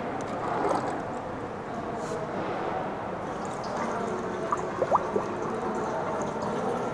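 Water being poured into the top opening of a calcium carbide acetylene generator's metal tank, splashing and trickling steadily. A few short squeaks come about four and a half to five seconds in.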